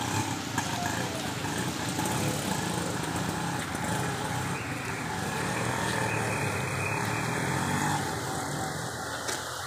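A motor vehicle engine running, a steady low rumble.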